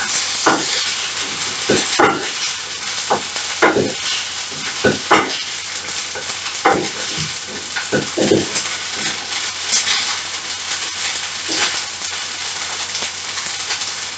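Pasta frying with a steady sizzle in a frying pan, stirred with a spatula that scrapes and knocks against the pan at irregular moments.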